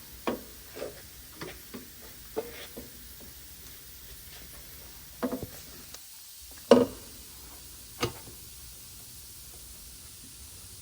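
Scattered metallic knocks and clinks as an aftermarket exhaust pipe is handled and fitted onto its hangers under a car. The loudest knock comes about two-thirds of the way in, with a single smaller one a little later.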